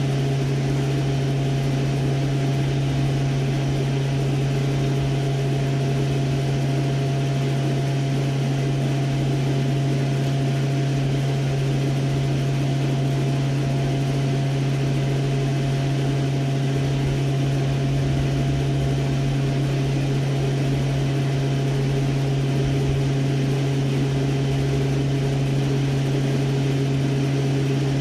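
A steady low mechanical hum, engine- or machinery-like, holding constant throughout with a fainter higher steady tone above it.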